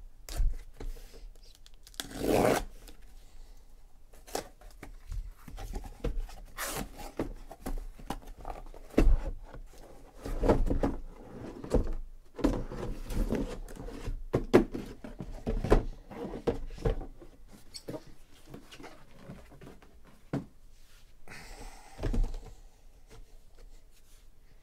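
Packing tape on a cardboard case being slit and torn open, with one loud tearing burst about two seconds in, then shrink-wrapped cardboard boxes of trading cards being pulled out and set down in stacks: irregular knocks, scrapes and crinkling of cardboard and plastic wrap.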